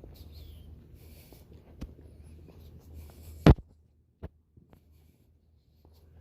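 A low steady hum with faint rustling and a few small clicks, then one sharp, loud knock just past halfway, after which it goes almost silent apart from a couple of faint ticks.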